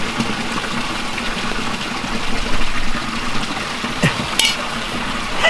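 Running water rushing steadily, with a short metallic clink about four seconds in as a steel camping pot is set down.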